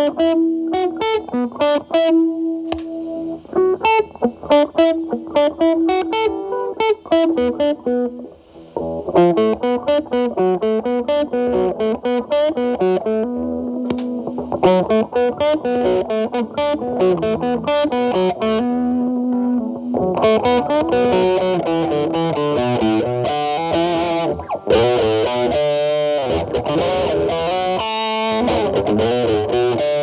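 Electric guitar with humbucking pickups, played through a metal distortion pedal into a clean amp, with the gain cleaned up. It plays single notes and melodic lines, then gets denser and brighter about two-thirds of the way in.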